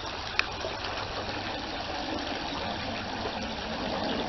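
Creek water running steadily, with a single sharp click about half a second in.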